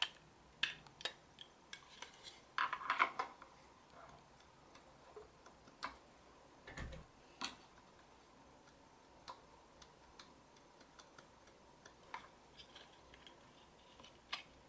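Scattered light clicks and taps of small plastic and metal parts being handled, as a rechargeable battery is fitted into a solar garden light. There is a short cluster of clicks about three seconds in and a soft knock about seven seconds in.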